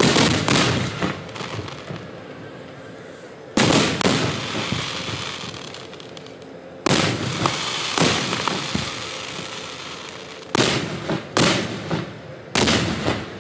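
Aerial firework shells bursting overhead: about eight loud bangs, some in quick pairs, one to three seconds apart. Each bang trails off in a fading crackle and rumble.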